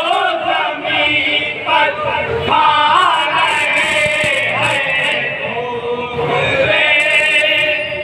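A group of men chanting an Urdu devotional kalam in chorus through microphones, voices only with no instruments.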